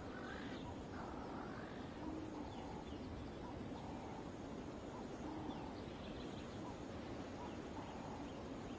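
Faint natural ambience: a low steady hiss with scattered soft bird calls.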